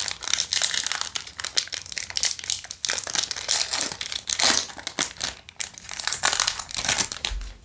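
Foil Yu-Gi-Oh! booster pack wrapper crinkling and tearing as it is ripped open by hand, a dense, irregular crackle of foil.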